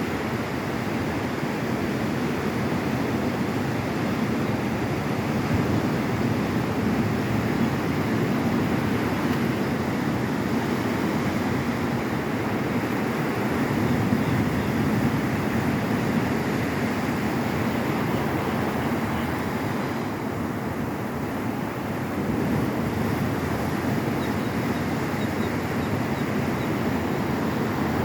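Ocean surf washing onto a beach: a continuous rushing of breaking waves.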